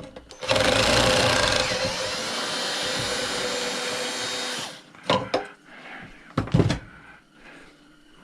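Power drill running steadily for about four seconds, driving a screw out of the chopsaw, followed by a few sharp knocks of metal parts.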